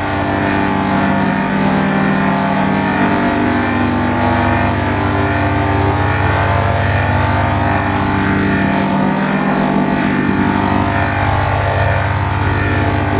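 Loud, heavily processed 'G Major' style audio: several pitch-shifted copies of one sound layered into a dense, steady drone. It comes across as a distorted, engine-like hum.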